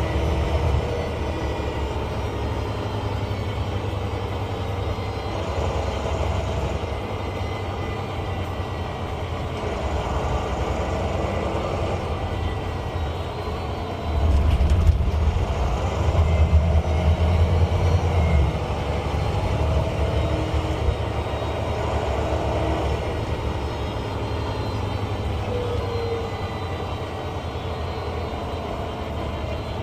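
Volvo B9 bus's diesel engine running under way, with a turbo whistle gliding up and down in pitch. It grows louder and fuller for a few seconds about halfway through as the bus pulls harder, then eases back.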